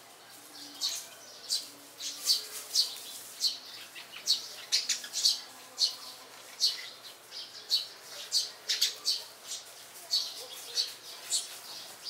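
Sparrows chirping: a busy, irregular run of short, high chirps, several a second, from a small group of birds.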